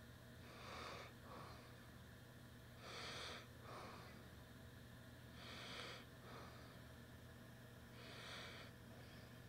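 Near silence: faint breathing of a person close to the microphone, one breath about every two and a half seconds, over a steady low hum.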